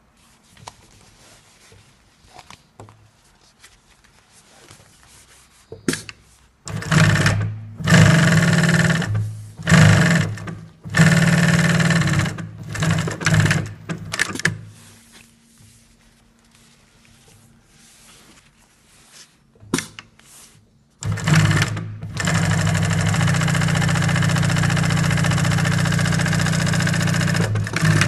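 Dürkopp 667 industrial upholstery sewing machine sewing in several short stop-start bursts, then one steady run of about seven seconds near the end. A faint steady motor hum carries on through the pauses.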